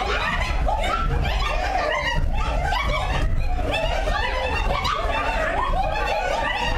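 A group of voices overlapping in short, high, rising-and-falling calls and laughter, many at once.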